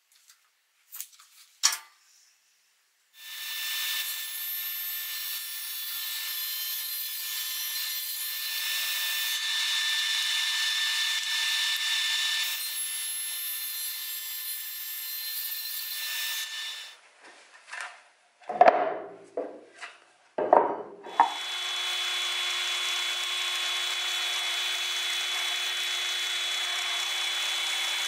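Sliding table saw running and cutting through plywood as the carriage is pushed past the blade, a steady noise of about thirteen seconds. Then come two loud knocks, and a drill press running steadily with a lower hum, boring into plywood.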